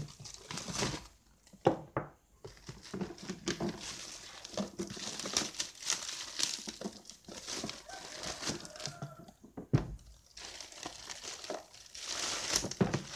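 Clear plastic wrap crinkling and rustling as it is pulled off purple plastic food storage containers, broken by a few sharp knocks of hard plastic against the table.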